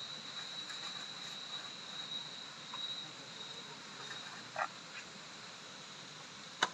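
Rainforest animal chorus: a steady high-pitched call over a hiss of background calls, fading after about three seconds, with a sharp click near the end.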